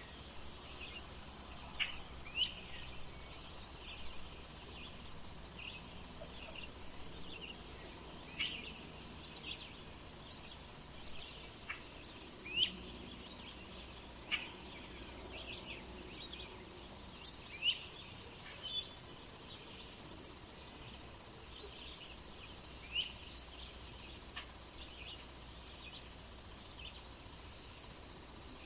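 Steady high-pitched insect chorus, cricket-like, with short chirps scattered through it about every one to two seconds.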